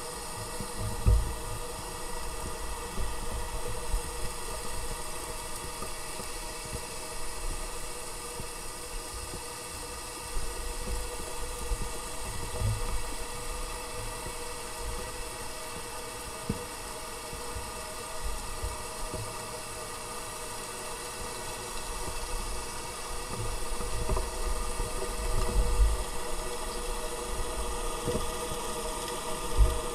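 Engines of several cruise ships and their tenders heard underwater: a steady, loud drone of many held tones. Now and then a low thump, the strongest about a second in and near the end.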